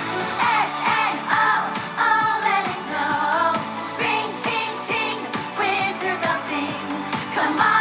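Pop song with a singing voice over a steady beat.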